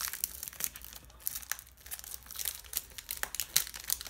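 Foil wrapper of a Pokémon Evolutions booster pack crinkling and tearing as it is opened by hand, in a run of irregular crackles.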